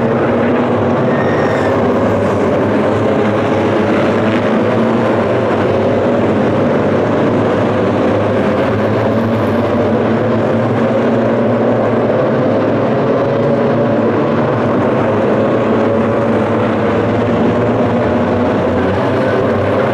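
A pack of Citroën C1 race cars running together, many small engines at once whose overlapping notes slowly climb in pitch as they accelerate past.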